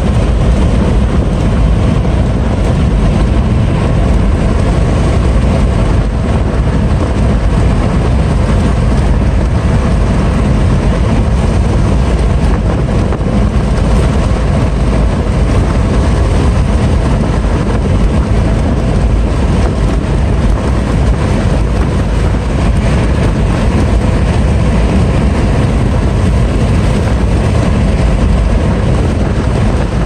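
Waterfall: falling water making a steady, loud rushing noise, heaviest in the low end.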